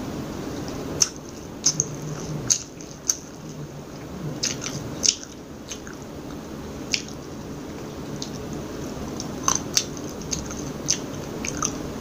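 Close-up chewing of a mouthful of sushi roll made of rice, nori and egg: soft, squishy chewing with scattered sharp, wet mouth clicks and smacks. Steady low background noise runs underneath.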